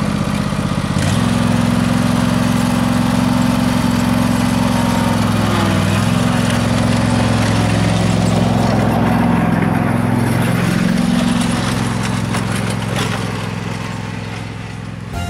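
Riding lawn tractor's engine running steadily as it mows. It gets louder about a second in, dips briefly in pitch twice, and fades over the last few seconds.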